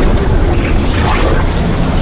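Tornado sound effect: loud, steady wind noise, heaviest in the low end, with a slightly brighter gusting sweep in the middle.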